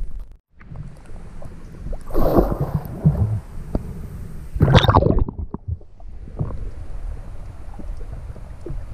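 Water sloshing and splashing against a handheld camera at the surface, with two louder splashes. About five seconds in, the camera goes under and the sound turns to a dull underwater rumble.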